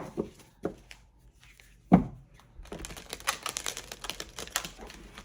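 A deck of tarot cards being handled and shuffled. A few soft knocks come first, then from about halfway through a quick run of flicking card clicks.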